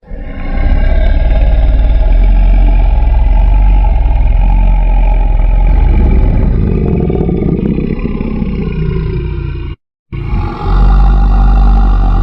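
A loud, low creature-roar sound effect held for nearly ten seconds, cutting off suddenly; a second roar starts about half a second later.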